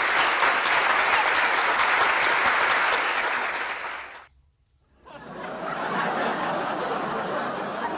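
Applause: dense, steady clapping noise that cuts out abruptly about four seconds in for under a second, then resumes a little quieter.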